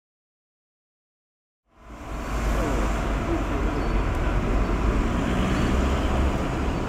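Silence, then about two seconds in a steady background din fades in, heavy in low rumble, with faint voices in it.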